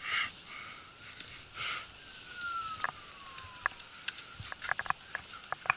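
Handling of a cast net full of mullet: scattered light taps, rustles and slaps from the net and the fish. A thin whistle glides down in pitch about two seconds in.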